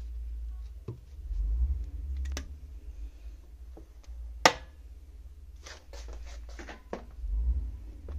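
Small metal lathe parts being handled: scattered light clicks and knocks of a steel four-jaw chuck, one sharp click about four and a half seconds in, and a quick run of clicks a second or so later, over a low handling rumble.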